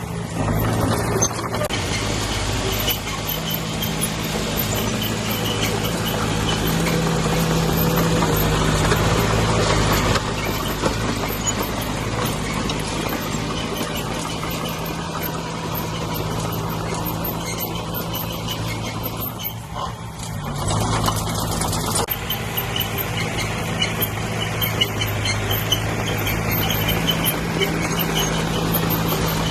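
Diesel engine of heavy earth-moving machinery running steadily under load, with a brief dip in loudness about twenty seconds in.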